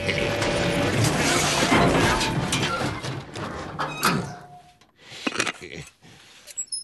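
Cartoon sound effects: a loud, dense clattering noise for about four seconds, then it drops away to a few separate knocks and clicks.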